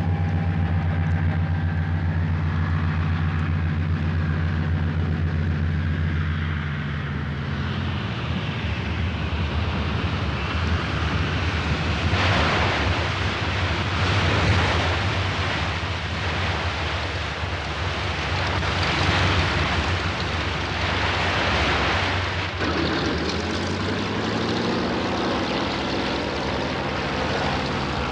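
Twin radial engines of a PBY Catalina flying boat droning steadily, then a long rush of water and spray as the hull comes down on the river, the engine drone sinking under it. Near the end the engine drone comes back and rises a little as the plane runs on the water.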